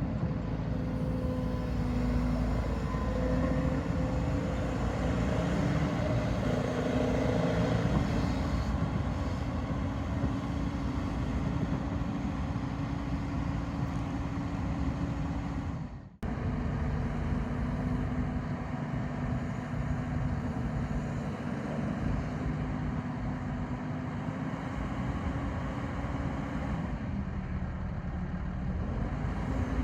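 Diesel engine of a Hyundai HX210AL tracked excavator running steadily with a low rumble. About sixteen seconds in the sound cuts out for an instant and resumes.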